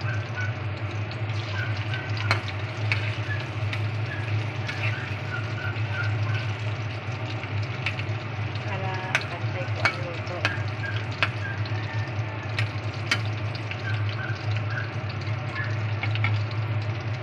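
Saba banana strips deep-frying in hot oil in a metal wok, a steady bubbling sizzle over a low hum, with scattered sharp crackles. About nine seconds in, a metal spatula scrapes and clicks against the pan as the strips are turned.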